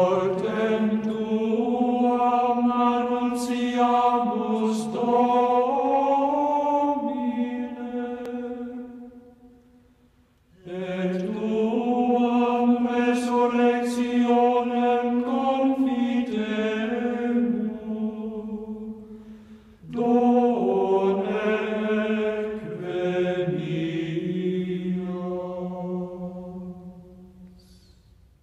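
Slow sung liturgical chant in Latin: long, held, slowly moving notes in three long phrases, with short breaks about ten and twenty seconds in, each phrase fading at its end.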